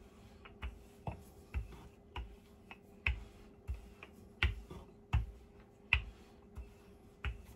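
Wooden rolling pin rolling out dough on a floured wooden board, knocking lightly against the board with each back-and-forth stroke, about three knocks every two seconds.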